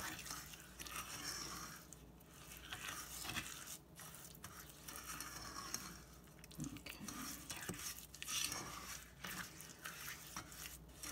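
Wet granulated sugar, water and corn syrup being stirred in a saucepan, the undissolved sugar grating and scraping against the pan in irregular strokes. The mixture is still unheated and gritty, not yet dissolved into syrup.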